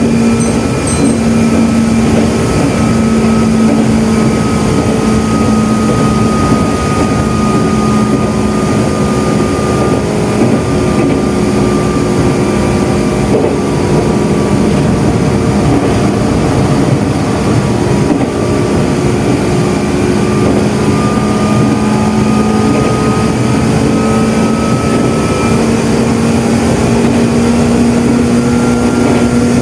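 Loud running noise of a Meitetsu 6000 series electric train in motion: a steady din of wheels on rail under a humming whine from the traction motors and gears. The whine sinks slightly in pitch through the middle and rises again near the end as the speed changes.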